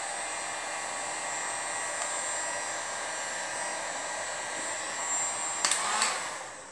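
Handheld electric heat gun running steadily, a rush of air with a faint high whine. Near the end come two clicks, and the noise falls away.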